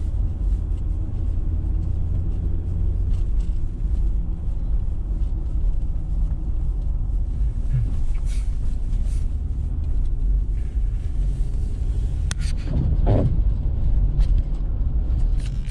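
A steady low rumble, with a few faint clicks and a brief higher, wavering sound near the end.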